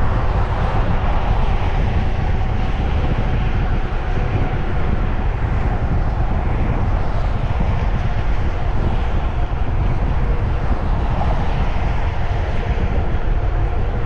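Wind rushing and rumbling steadily over the microphone of a camera on a moving bicycle.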